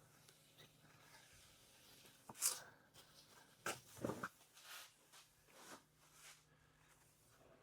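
A rag wiping over the sanded carbon fiber hood: a few short, soft swishes of cloth rubbing the surface, with a light knock about four seconds in.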